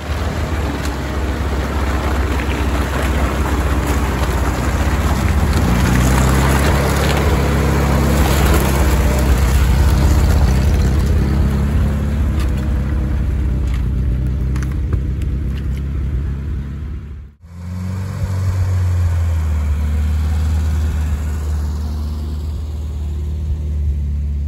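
GAZ-69's four-cylinder flathead petrol engine running under load as the off-roader drives along a muddy forest track, revving up a few seconds in. The engine sound cuts out for an instant about two-thirds through and then carries on.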